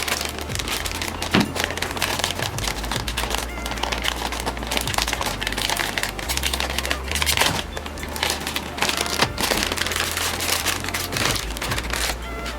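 Hands handling computer parts: a dense, irregular run of crinkling, rustling and small clicks.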